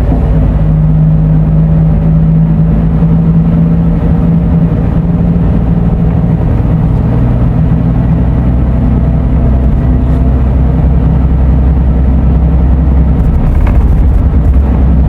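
Scania coach's diesel engine droning steadily while the bus is underway, heard from inside the cabin. A low hum sits under road noise, and one of its tones drops out about eight seconds in.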